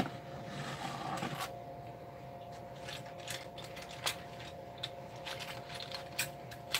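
Small metal clock-movement parts and tools clicking lightly as they are handled and set down on a towel-covered bench, with a few irregular clicks spaced about a second apart over a faint steady hum.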